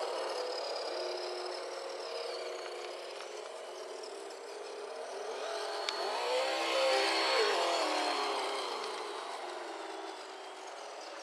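Simulated engine sound from an RC sound-kit speaker inside a scale crawler, idling and then revving up about halfway through before dropping back to idle. It is thin, with no deep bass, as from a single small speaker. A single sharp click comes just before the rev.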